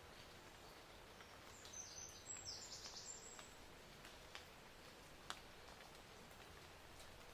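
Faint outdoor background hiss with a short run of high chirps about two to three seconds in, and a soft click a little after five seconds.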